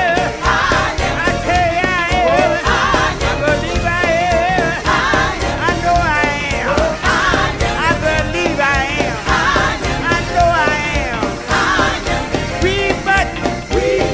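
Gospel song playing: singing with wavering vibrato over a full band with a steady beat.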